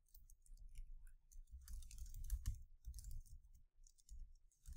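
Typing on a computer keyboard: faint key clicks in short irregular bursts with brief pauses.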